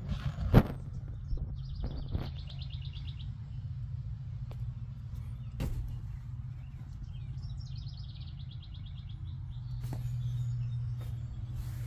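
A small songbird sings two trills, each a rapid, even run of high notes lasting about a second and a half, over a steady low rumble. A sharp knock about half a second in is the loudest sound, with a fainter one near the middle.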